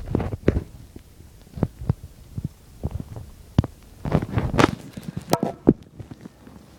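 Irregular knocks and clatters, with a denser, louder cluster of them about four to five and a half seconds in.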